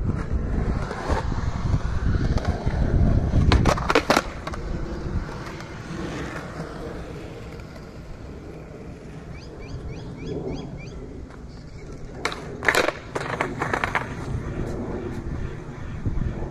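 Skateboard wheels rolling on concrete with a low rumble, then sharp clacks of the board about four seconds in; after a quieter stretch comes another cluster of clacks and scrapes of the board about twelve to fourteen seconds in.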